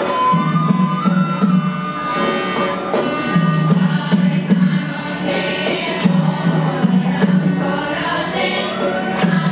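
A women's choir singing an Assamese song together, accompanied by harmonium and tabla.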